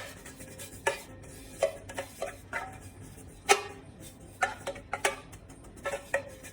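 Kitchen utensil knocking and scraping against a mixing bowl of cake batter: a string of irregular clicks and knocks, the loudest right at the start and about three and a half seconds in.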